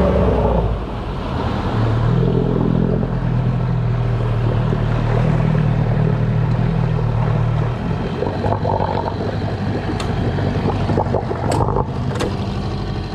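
Small tiller outboard motor running, driving an aluminium boat along a canal at a steady note that drops lower and a little quieter about eight seconds in, as the throttle is eased. A few sharp clicks come near the end.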